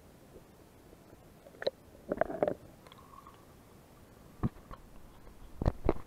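Shallow sea water moving over pebbles, heard muffled through a submerged action camera's waterproof housing: a low wash broken by sudden gurgles and knocks, a cluster about two seconds in and two more near the end.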